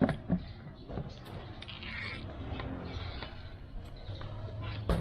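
Sneaker being handled and turned over by hand: a few light clicks and knocks in the first second, then soft rustling over a low steady hum.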